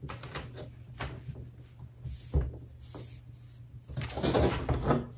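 Hard plastic snap-on laptop case shell being handled and pressed onto an aluminium MacBook Pro lid: scattered light knocks and clicks of plastic on metal, the sharpest about halfway through, then a stretch of rubbing and scraping near the end as the shell is pushed along the lid.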